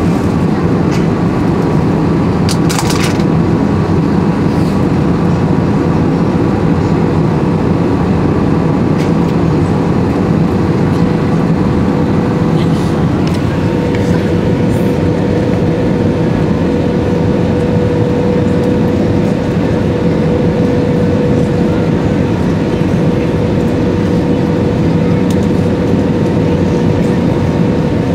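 Steady cabin roar of an Airbus A320-216 in flight, the airflow and its CFM56 engines heard from a seat over the wing during the descent, with a steady hum that grows stronger about halfway through.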